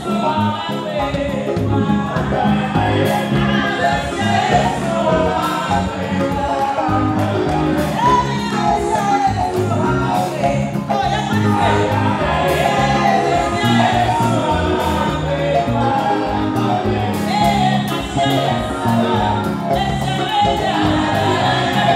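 Gospel song performed live: a woman sings lead into a microphone over a band with drums and electric guitar, with a steady beat.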